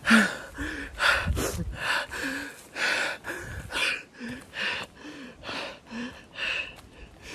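A man breathing hard and fast, short gasping breaths with a slight voice in them about twice a second, out of breath from moving quickly.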